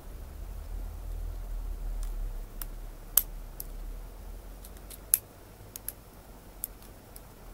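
Lock pick clicking against the pins inside a six-pin ERA euro profile cylinder as it is being picked under a tension wrench: about a dozen sharp, irregular metallic clicks, two louder ones about three and five seconds in, over a low handling rumble.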